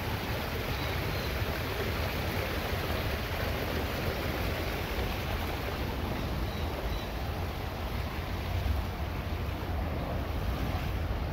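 Wind buffeting a phone's microphone: a steady rushing hiss over a low rumble that does not change.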